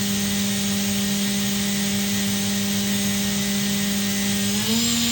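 Makino F5 vertical machining center's spindle spinning at 12,000 RPM, a steady whine. Near the end the spindle speeds up toward 14,000 RPM and the pitch steps up.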